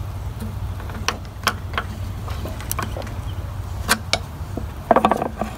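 Plastic fuel tank of a Honda FG100 mini tiller clicking and knocking against its metal mounting bracket as it is pushed forward to snap into place: a dozen or so scattered sharp clicks, the loudest about four seconds in, and a short rasping scrape about five seconds in.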